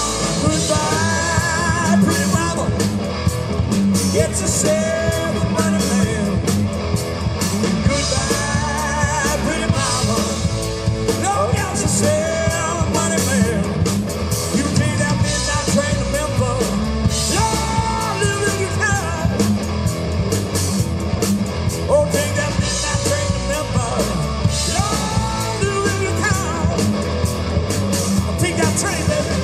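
Live rock band playing loud and steady: electric guitars, bass and drum kit, with a singer's vocals over the top.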